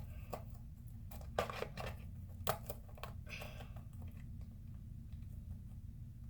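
Hands handling and opening a boxed vinyl figure's packaging: scattered light clicks and rustles of cardboard and plastic, busiest in the first half and sparser after, over a steady low hum.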